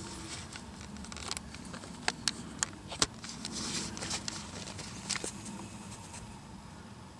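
Rustling with a quick run of four sharp clicks about two to three seconds in, and another click near five seconds.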